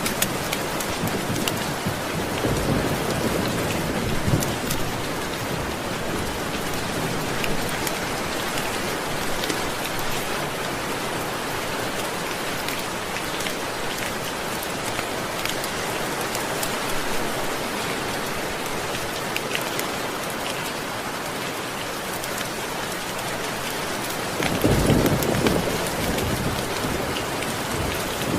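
Steady rain falling, with low rolls of thunder twice: a few seconds in and again near the end.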